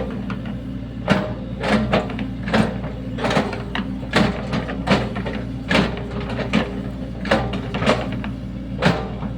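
Sany SY75 mini excavator's diesel engine running steadily while digging a ditch, with repeated sharp clanks and scrapes from the working arm and bucket, roughly one every second or less.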